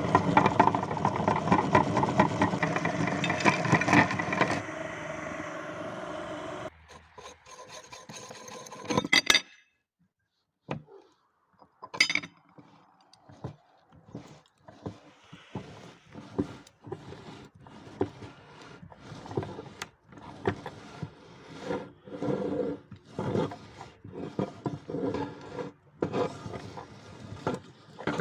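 Meat grinder grinding Twix chocolate bars with a grating, rasping crunch. For the first few seconds it grinds loud and dense, then it thins out and stops for a couple of seconds. It starts again as a run of short, irregular crunches.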